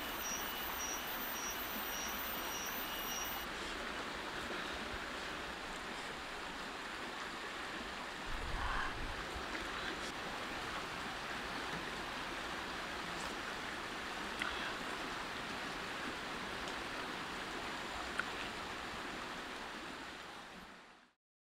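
Steady rushing outdoor background noise, with a faint high chirp repeating about twice a second for the first few seconds and a brief low thump about eight seconds in. The sound fades out near the end.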